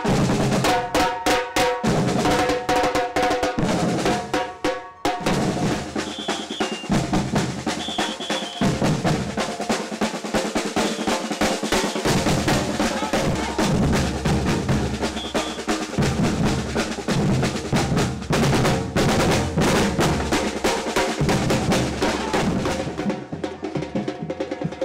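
A street drum band playing large bass drums and snare drums with sticks in a fast, steady, driving beat, with dense rapid strokes.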